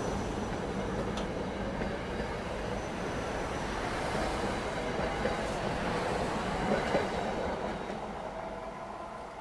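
SEPTA Silverliner IV electric commuter train running along the platform, a steady rumble of wheels on rail with some clickety-clack, fading from about seven seconds in as the train draws away.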